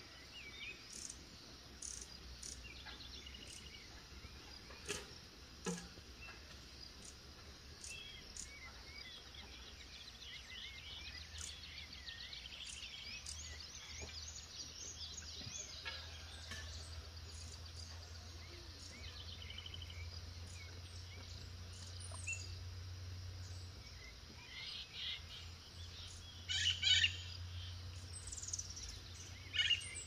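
Several wild birds singing together: scattered short chirps and warbled phrases, with a loud burst of rapid chirps near the end. A steady high insect buzz and a low background hum run underneath.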